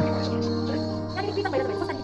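Background music with held notes that change pitch a few times.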